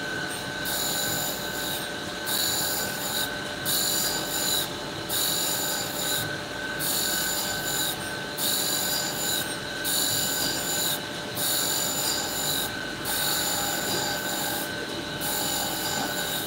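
Tool-and-cutter grinder's cup wheel grinding the relief on a 45° chamfer bit's cutting edge as the fixture is swept back and forth. A rasping grind comes in about every one and a half seconds, some ten strokes, over the steady whine of the running wheel spindle.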